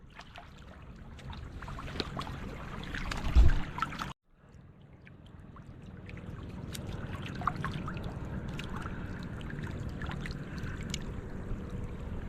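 Shallow water sloshing and trickling, with scattered small clicks and one heavy thump about three and a half seconds in. The sound drops out for a moment about four seconds in, then the water sound resumes.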